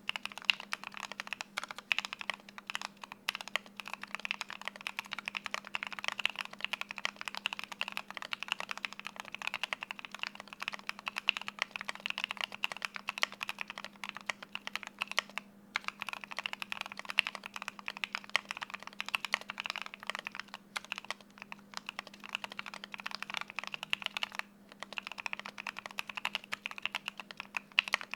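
Steady fast typing on a Keychron Q8 mechanical keyboard with Gateron North Pole switches, its PCB tape-modded and the case filled with polyfill, giving a muted, full keystroke sound. The typing breaks off briefly twice, about halfway and again near the end.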